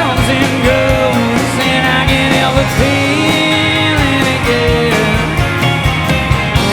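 Rock band playing live: a guitar melody with sliding, bending notes over bass and steady drums.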